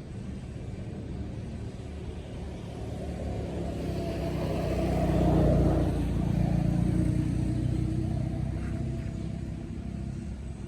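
A motor vehicle passing by: its engine hum grows louder to a peak about halfway through, then fades away.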